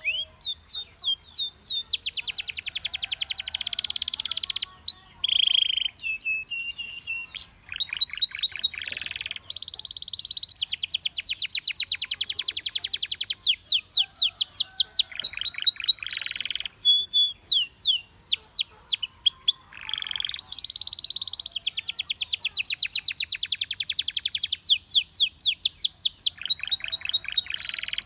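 Belgian canary singing a long, continuous song of fast trills and rolls: rapid runs of repeated high notes, changing from one tour to the next, with short held whistles in between.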